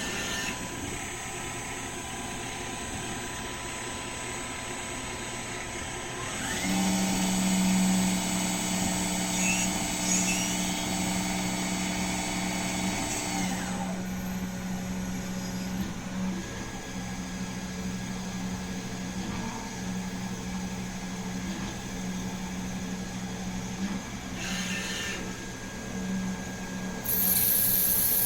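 Ray Feng RSL16 CNC Swiss-type sliding-headstock lathe running a machining cycle: a steady machine whine, with a louder hum of several tones starting about a quarter of the way in and changing pitch and level in steps as the cycle goes on. A loud hiss starts near the end.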